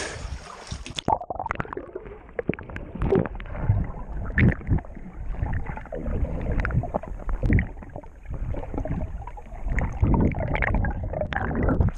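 Muffled gurgling and sloshing of lake water heard from underwater, with irregular dull thumps. About a second in, the brighter open-air splashing cuts off as the camera goes under the surface.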